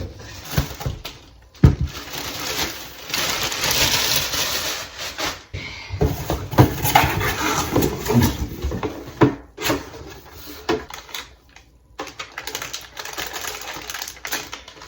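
Irregular rustling with scattered clicks and knocks of small hard objects being handled, stopping and starting abruptly several times.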